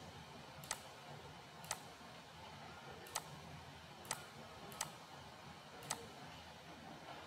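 Computer mouse button clicks: six sharp single clicks at uneven intervals, over a faint steady hiss.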